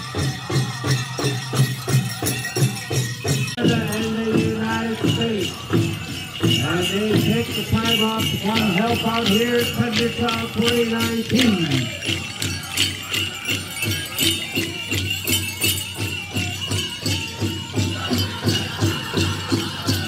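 Powwow drum group striking a big drum in a steady beat of about three strokes a second, with a group of singers singing a grand entry song from about four seconds in to about twelve seconds, their line falling at the end. Metal jingles on the dancers' regalia jingle along with the drum.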